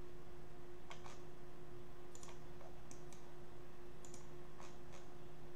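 Computer mouse clicks, about five in a few seconds, most heard as a quick press-and-release pair, over a steady low electrical hum.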